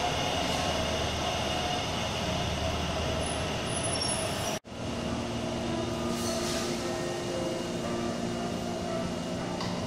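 Taipei Metro Bannan Line train running along an underground platform, a steady rumble. About halfway through it cuts off abruptly, giving way to station ambience with a steady low hum.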